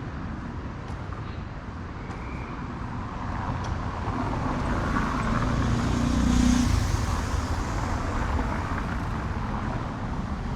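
City street traffic: a motor vehicle's engine and tyres grow louder as it passes close by, loudest about six to seven seconds in, then fade back into the steady traffic rumble.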